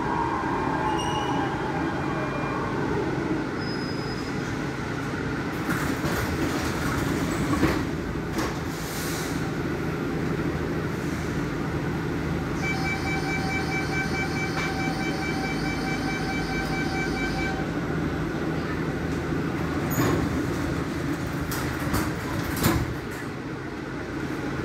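Barcelona Metro Series 4000 train braking into a station with a falling whine, then standing with a steady equipment hum. Near the middle a beeping warning tone repeats for about five seconds, and near the end a few knocks come from the doors.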